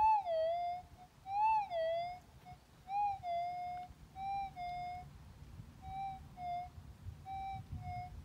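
Gold metal detector's target signal: a whistle-like tone that swells up in pitch and dips back, repeating about every second and a half as the coil is swept back and forth over a buried gold nugget. The tone is strongest in the first two seconds and grows fainter after.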